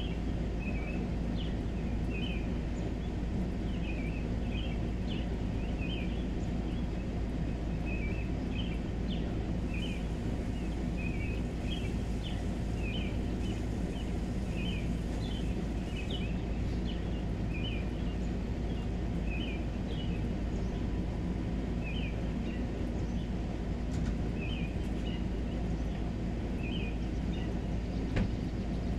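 Outdoor evening ambience: a steady low drone, with short high chirping calls repeating about once a second through it.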